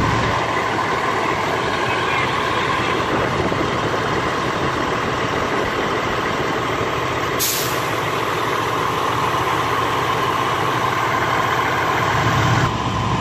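Fire trucks' diesel engines idling in a steady rumble, with a steady tone running through it. About seven seconds in comes a short, sharp hiss of air from an air brake.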